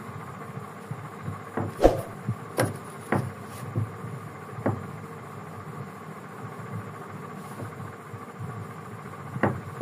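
A pen and plastic ruler being handled on a notebook page while a triangle is drawn: a handful of light knocks and taps, most in the first half and one more near the end, over a steady low hum.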